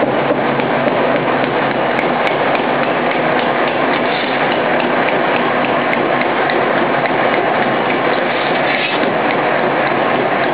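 Stamping-rod biomass briquette machines running, their rods pressing sawdust into briquettes with a loud, steady mechanical clatter of fast, even knocks.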